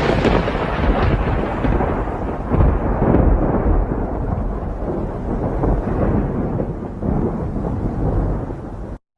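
Rolling thunder: a long, low rumble that slowly fades and cuts off abruptly near the end.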